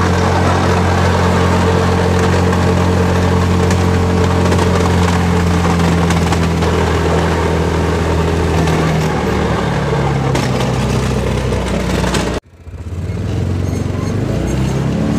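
Yamaha Rhino 700 UTV's single-cylinder engine running steadily under load while pushing a snow plow blade, its pitch dropping a little about nine seconds in. About twelve seconds in the sound cuts out abruptly for a moment, then the engine is heard again.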